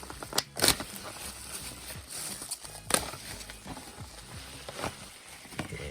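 Die-cast toy car packaging being handled, with a scatter of sharp plastic clicks and crinkles. The loudest come about half a second in and about three seconds in.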